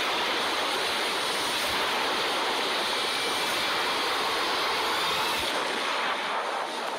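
Film sound effect of a huge tsunami wave crashing and churning, a dense, steady rush of water.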